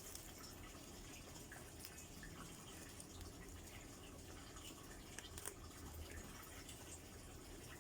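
Near silence: faint room tone with a low hum and a few soft scattered ticks.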